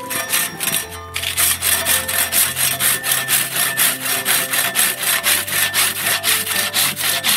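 Hand saw cutting firewood, with quick, even back-and-forth strokes, about three a second, growing stronger about a second in.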